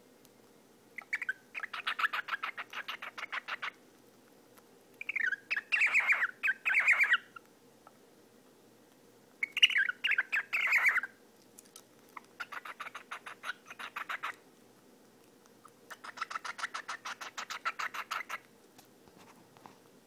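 Cockatiel purring: five spells of rapid pulsed chattering, each a second or two long. The second and third spells are the loudest and open with a short bending chirp.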